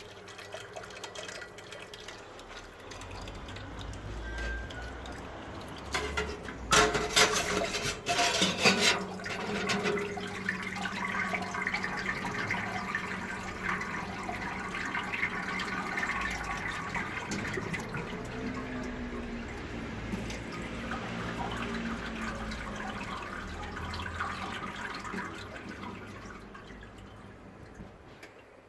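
Water running and splashing in a 45-litre electric mash kettle, with a cluster of loud knocks about seven seconds in.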